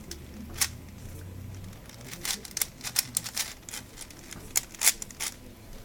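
4x4 Rubik's cube being turned by hand: quick, irregular plastic clicks and clacks as the layers snap round. There is one click about half a second in, and the clicks come thick and fast from about two seconds on.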